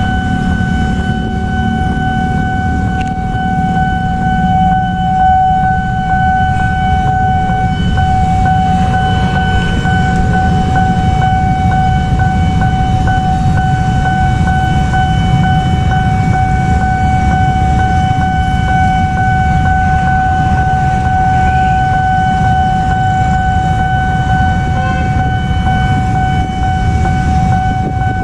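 Railway level-crossing warning alarm sounding a steady, unbroken tone, which signals an approaching train, over a constant low rumble.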